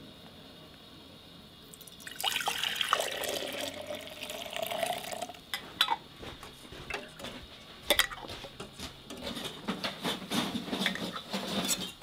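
Chicken broth poured into a glass mason jar, the pitch of the filling rising as the jar fills. It is followed by sharp clicks and clinking of metal canning lids and bands set on the jars.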